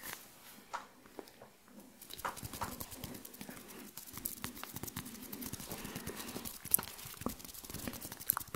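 Close-miked ASMR hand sounds: fingers rubbing and clicking together right at the microphone, scattered clicks at first, then a dense crackling patter from about two seconds in.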